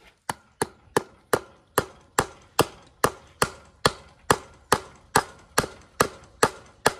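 Steel hammer striking at the wire on a wooden fence post: a steady run of about seventeen sharp blows, roughly two and a half a second.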